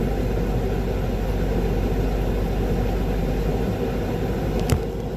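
Concrete mixer truck's diesel engine running steadily while the drum discharges concrete into a line pump. The deep engine note eases off about three and a half seconds in, and a single sharp knock follows about a second later.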